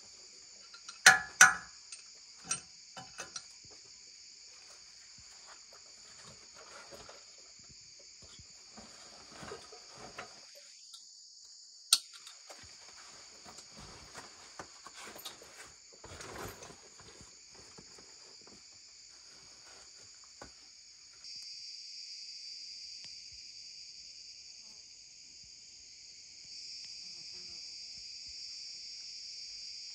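Steady high chorus of insects, with footsteps and rustling as someone climbs over rocks through leafy undergrowth, and a few sharp knocks in the first seconds, the loudest of them. The insect chorus grows louder about two-thirds of the way through and again near the end.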